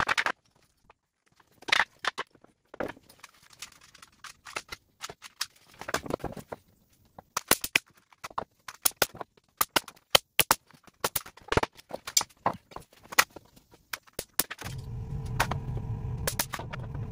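2x4 studs clattering onto a concrete floor, then a pneumatic framing nailer firing nail after nail into the studs of a wall frame: sharp shots, often in quick pairs and runs. Near the end an air compressor starts and runs steadily.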